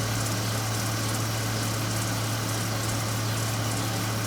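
2001 BMW X5 3.0's straight-six engine idling steadily after an oil change, with a steady low hum, while it runs to show any oil leaks.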